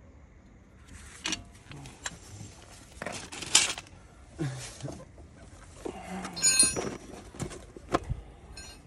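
Metal clinks and knocks of hand tools and brake parts being handled during a brake pad change, with one short ringing clang about six and a half seconds in.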